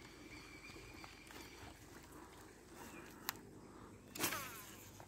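Faint outdoor quiet with soft footsteps on a dirt pond bank, a single click about three seconds in and a short louder swish just after four seconds.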